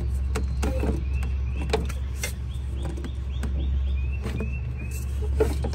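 Plastic cold air intake tube being twisted and worked loose from the throttle body by hand: scattered clicks and knocks of plastic and the metal band clamp, over a steady low hum.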